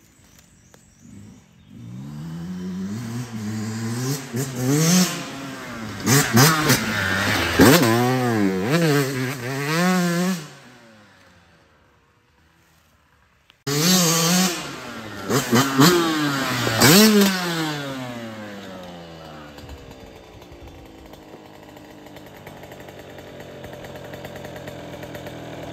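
Yamaha YZ125 two-stroke dirt bike revving hard and shifting through the gears, its pitch climbing and dropping again and again as it rides past. It falls silent for a few seconds, comes back abruptly with another run of revving, then fades away.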